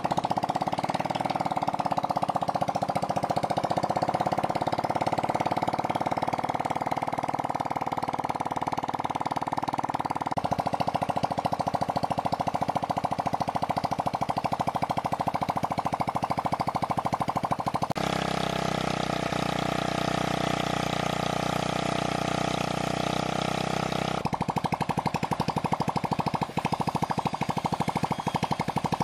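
The 49 cc single-cylinder four-stroke engine of a 1979 Honda Super Cub C50 runs steadily on a test stand, freshly restored and just kickstarted. Its note shifts abruptly a few times.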